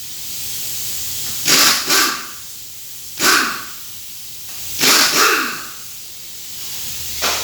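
A dog barking, about five short barks in ones and twos roughly a second and a half apart, over a steady low hum.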